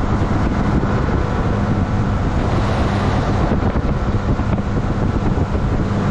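Small motorboat's engine running at a steady cruising speed, a constant hum, with wind noise on the microphone as the boat moves.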